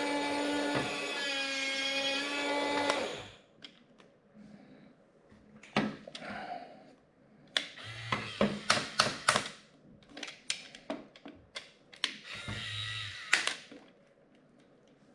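Music ending about three seconds in, then a toy RC bulldozer's small electric motors whirring in short spurts, with rapid plastic clicking from its gears and tracks as it drives and turns.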